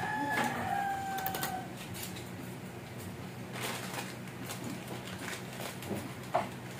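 A thin plastic bag of small fan parts crinkling as it is handled and cut open with scissors, in short scattered crackles. A rooster's crow fades out in the first second and a half.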